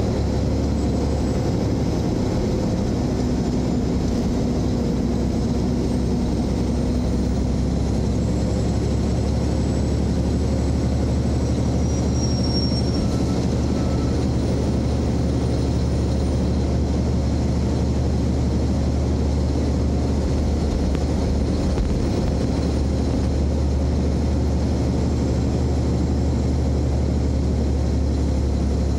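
A car driving at a steady speed: a constant low rumble of engine and road noise.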